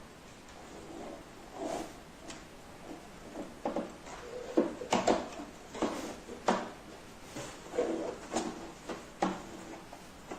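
A series of light knocks, clicks and rustles from things being handled, coming irregularly and loudest about halfway through.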